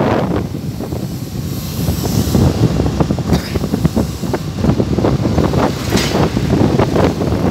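Wind buffeting the microphone in uneven gusts on a moving two-wheeler, over the vehicle's engine and road noise.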